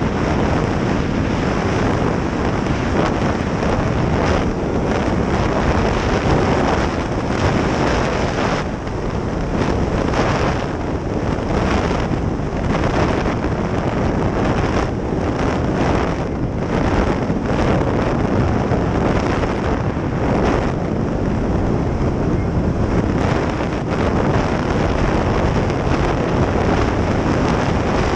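A snowmobile running at speed, its engine and track drone buried under heavy wind buffeting on the microphone. The rush surges and dips unevenly in the middle stretch.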